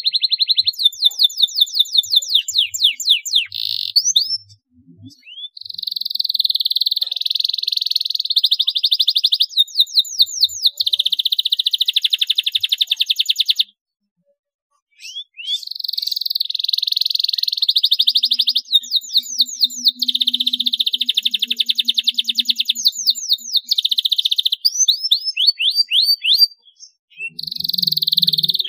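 A domestic canary singing a long, vigorous song. Fast runs of sweeping notes alternate with rapid buzzing rolls, with a short silence about halfway through before the song starts again.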